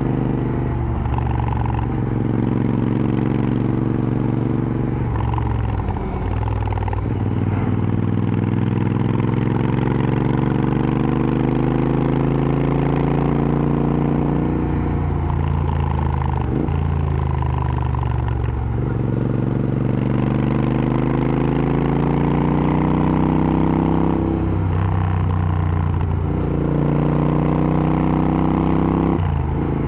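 A Royal Enfield Interceptor 650's parallel-twin engine runs through an aftermarket AEW TE 102 exhaust while riding. The pitch rises as it pulls through the gears and drops back at each shift, many times over.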